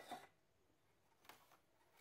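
Near silence, broken by light clicks of hands working the throttle cable spring and line at the throttle body: a short clatter at the very start and a fainter click a little over a second in.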